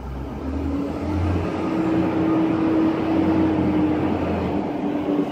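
A vehicle's low engine rumble with a steady hum, building over the first two seconds and then holding.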